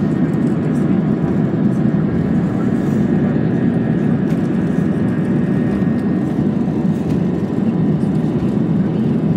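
Jet airliner's engines and airflow during the climb after takeoff: a steady, deep rushing noise with faint steady high tones above it.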